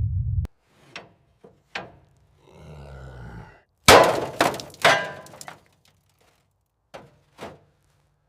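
Hard objects knocking and clanking: a few sharp knocks, then a loud burst of crashing impacts about four seconds in, then two more knocks. A low rumble cuts off just before the first knock.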